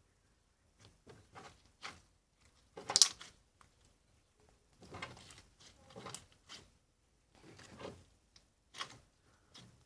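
Slime being squeezed and stretched by hand: irregular squishes and clicks, the loudest about three seconds in.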